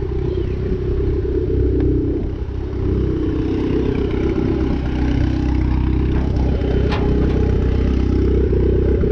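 A vehicle engine idling steadily close by, a continuous low rumble, with a single short click about seven seconds in.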